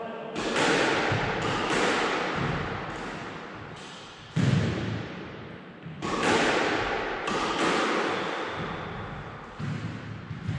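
Squash ball being hit in a backhand drill: sharp cracks of racket on ball and ball on wall, one every second or two, each ringing on in the court's echo.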